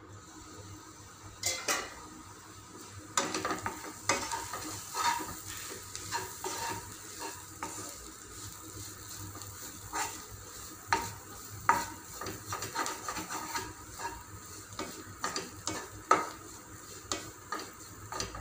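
A steel pan lid lifted off with a ringing metallic clink about a second and a half in, then a spatula stirring and scraping small dried fish in a black pan, in irregular strokes over a light sizzle. The fry is nearly done after simmering covered on low heat.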